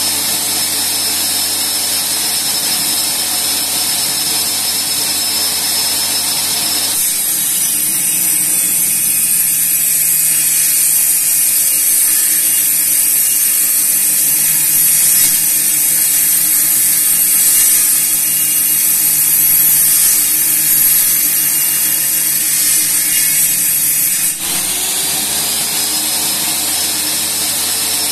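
Simple bench-mounted table saw ripping a plank lengthwise. Its blade spins free with a steady whine, then cuts with a loud hiss from about seven seconds in until about twenty-four seconds. The motor's note then rises as it spins back up unloaded, and a new cut begins at the very end.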